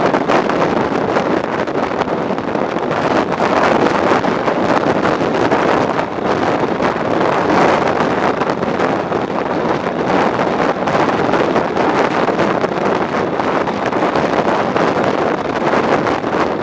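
Steady wind rush buffeting the microphone of an action camera on a motorcycle moving at road speed, with no clear engine note standing out.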